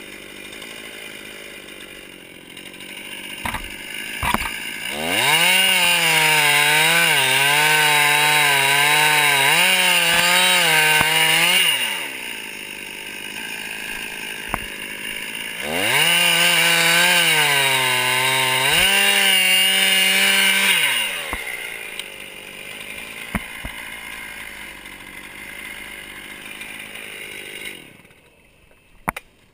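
Stihl chainsaw idling, then opened to full throttle twice, for about six seconds and then about five, its pitch wavering and dipping under load as it cuts into a red oak trunk. It drops back to idle after each cut and stops near the end.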